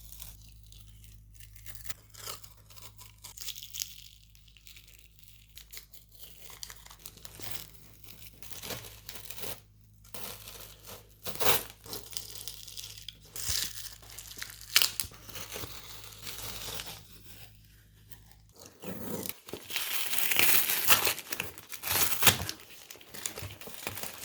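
Packaging being torn open by hand, with scattered rustles and crinkles, then a louder stretch of tearing and crinkling near the end.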